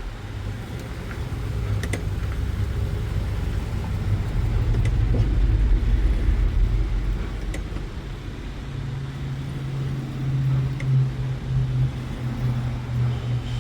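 Motor-driven flat hone running with a low, steady hum while a curved grooming shear blade is sharpened on it. A steady low tone comes in about two-thirds of the way through and cuts off at the end.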